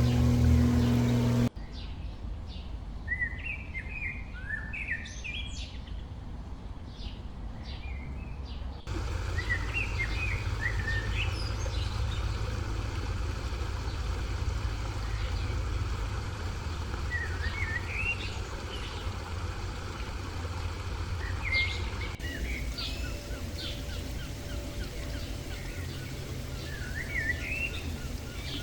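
Songbirds chirping and singing in short phrases over a steady low rumble, heard across several spliced clips with abrupt changes in background. The opening moment carries a steady motor-like hum that cuts off about a second and a half in.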